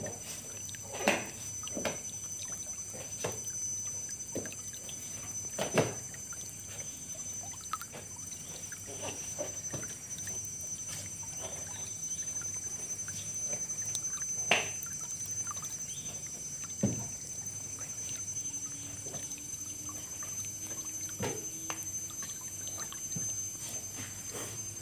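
Quiet room tone with a steady faint high-pitched whine, broken by irregular knocks and rustles of someone moving about and handling things, about half a dozen of them sharper and louder.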